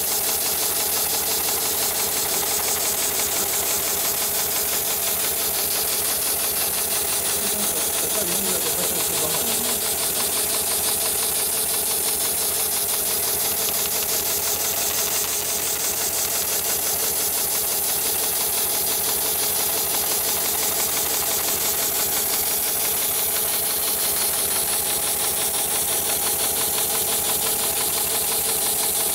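Heavy-duty automated shoe-sole stitching machine running steadily, its needle mechanism cycling in a fast, even mechanical beat.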